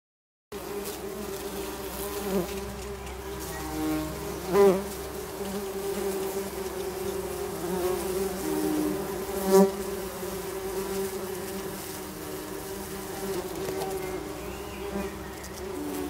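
Tree bumblebee workers buzzing over their opened nest, a steady hum of several overlapping pitches; the workers are agitated by the opening of the nest box. Twice a single bee buzzes loudly close by.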